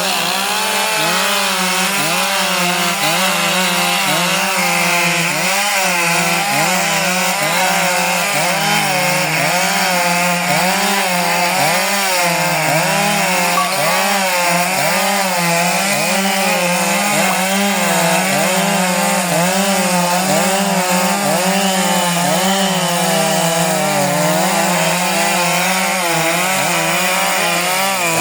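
Big Stihl chainsaw running at full throttle while cutting wood. Its pitch dips and recovers about once a second as the chain loads up in the cut.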